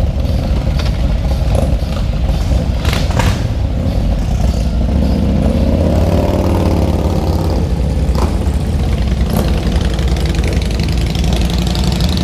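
Several Harley-Davidson V-twin motorcycles idling and pulling away, one engine revving up and easing off about halfway through as the bikes ride off.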